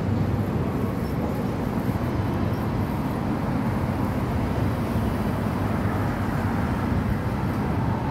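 Steady low rumble of city road traffic, an even wash of car noise with no single vehicle standing out.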